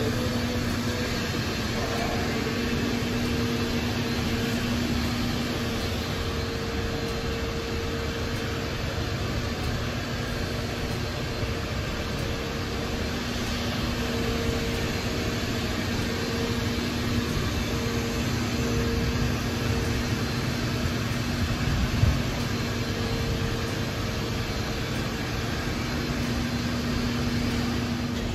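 Steady mechanical hum under an even rushing noise: a constant drone with one higher overtone. A single brief knock comes about 22 seconds in.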